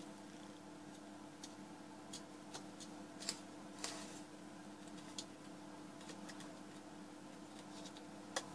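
Scattered light clicks and ticks of metal tongs against a terracotta dish holding a potassium permanganate and concentrated sulfuric acid mixture, over a faint steady hum.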